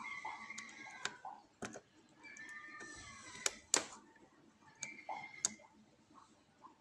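A bent Peterson lock pick working the pins inside a ProFix padlock's keyway: light metal scraping and short squeaks, broken by several sharp clicks.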